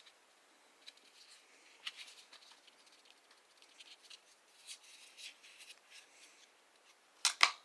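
Small handling noises of a fixed-blade knife and its sheath: light scrapes, rustles and scattered ticks, then two sharp clicks close together near the end.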